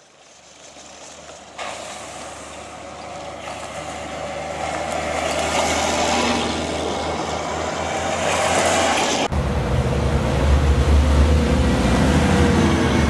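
KTO Rosomak 8×8 armoured vehicle driving on a dirt track: diesel engine running with a low drone and tyre and road noise. The sound grows louder, changes abruptly twice, and the low drone is strongest near the end.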